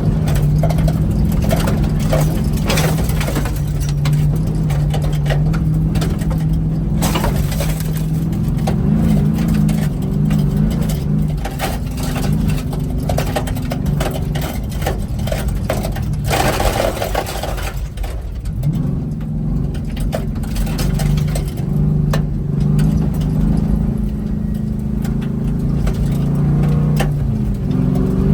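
A vehicle engine running hard on a dirt track, holding a steady note that drops briefly about eighteen seconds in, with frequent knocks and scraping over the top.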